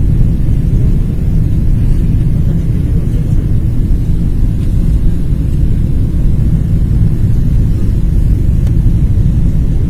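Steady low rumble of a jet airliner's cabin on approach: engine and airflow noise heard from inside at a window seat.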